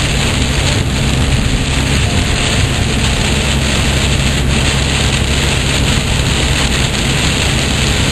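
Heavy rain beating on the car's roof and windshield, heard from inside the cabin, over a steady low drone of the car and its tyres on the flooded highway.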